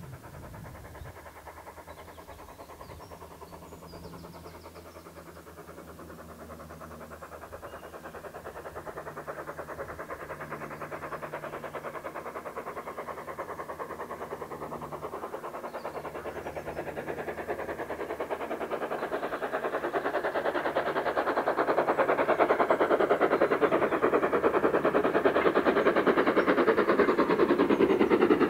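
LMS Ivatt Class 2MT 2-6-2 tank steam locomotive approaching under steam, its fast exhaust beats growing steadily louder as it nears.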